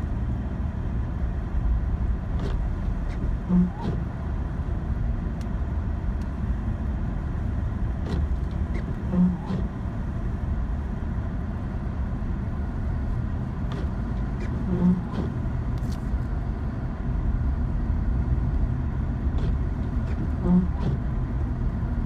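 GMC Sierra pickup driving on a snow-covered road, heard from inside the cab: a steady low engine and tyre rumble. A short low tone sounds four times, about every five and a half seconds.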